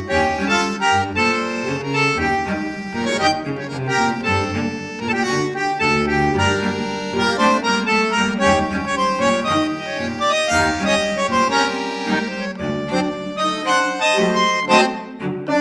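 Background music: a melody of quick, changing notes over a moving bass line.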